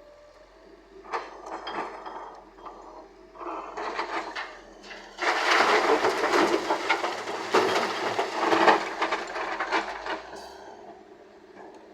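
Loose murram soil and stones clattering as heavy earthmoving machinery digs or loads it, with a diesel engine running low underneath. Scattered knocks come first; about five seconds in, a heavy, dense pour of earth and stones sets in and lasts about five seconds before dying away.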